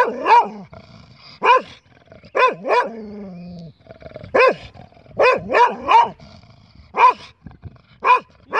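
English Springer Spaniel barking over and over, about ten loud, sharp barks in ones, pairs and a quick run of three, with a low drawn-out growl about three seconds in. It is impatient barking from a dog made to stop on a walk that he wants to keep going.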